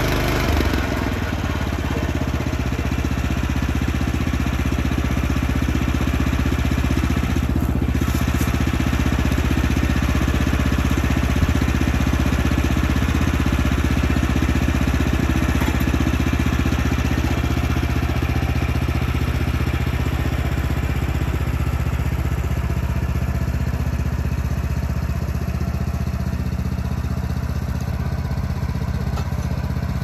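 An engine running steadily at a constant speed.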